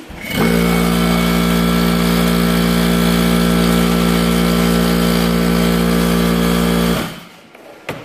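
Rolair pancake air compressor running with a steady, loud hum. It switches on just after the start and cuts off about seven seconds in. The unit needs a rebuild and is not fully hooked up, which makes it louder than normal.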